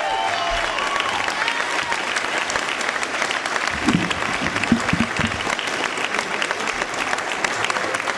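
Large audience applauding steadily, with a few cheers in the first second or so.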